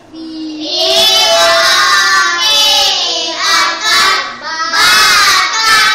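A group of young children chanting in unison, spelling out a word aloud in a sing-song rhythm.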